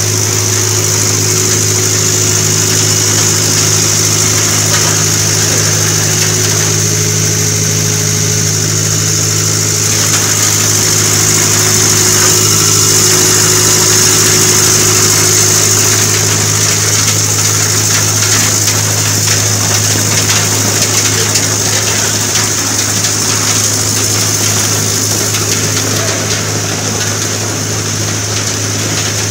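Snack food extrusion line running, its electric drive motors and rollers giving a steady low hum with a constant high hiss over it.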